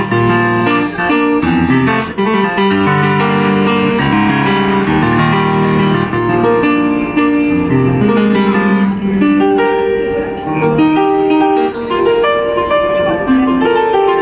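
Yamaha grand piano played continuously: a moving melody over long-held low notes and chords.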